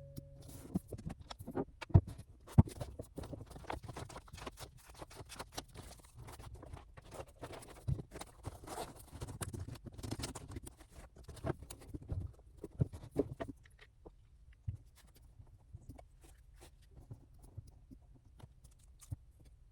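A run of irregular light taps and clicks of small objects being handled, dense for about the first thirteen seconds, then sparser and fainter.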